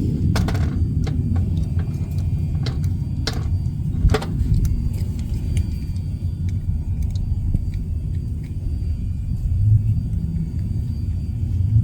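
Steady low rumble with a few sharp clicks and knocks of small parts being handled and fitted, the clearest about three and four seconds in.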